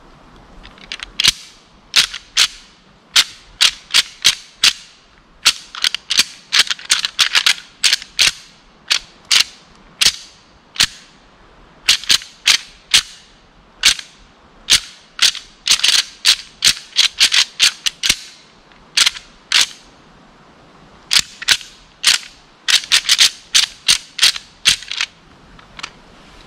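Deer rattling call worked by hand: irregular runs of sharp clacks and clicks in quick clusters, imitating two bucks' antlers clashing in a fight to draw a buck in.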